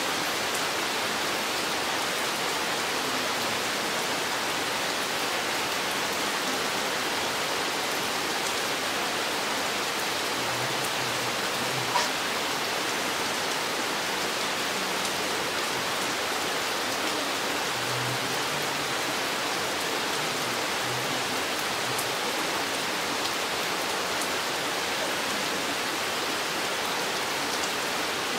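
Steady rain falling on a forest: an even, unbroken hiss, with one sharp tap about twelve seconds in.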